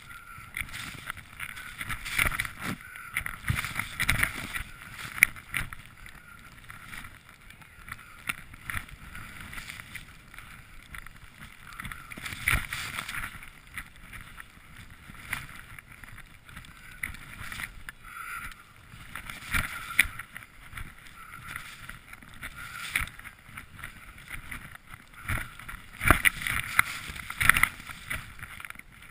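Skis swishing through deep powder snow in uneven surges, with sharp knocks now and then.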